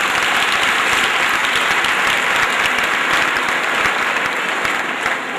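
Audience clapping steadily after a children's stage dance, easing off near the end.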